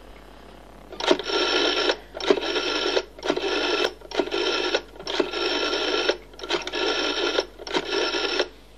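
A black rotary desk telephone being dialled. After a quiet first second the dial whirs back seven times, each return lasting under a second, one for each digit of a seven-digit number.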